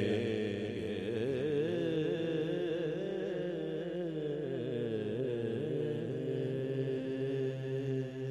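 A man singing a naat into a microphone, drawing out one long wavering note that steadies near the end.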